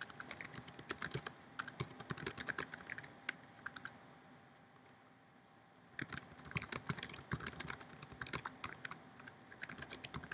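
Typing on a computer keyboard: quick runs of key clicks, a pause of about two seconds partway through, then the typing resumes.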